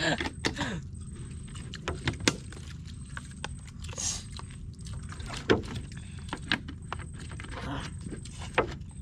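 People eating with their hands outdoors: scattered light clicks and taps of plastic food containers and a spoon being handled, over a steady low rumble.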